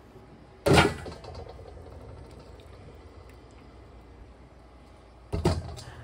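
Two clunks of kitchen tongs and blanched corn cobs against a stainless steel bowl, the first about a second in and louder, the second near the end, each with a short ring after it.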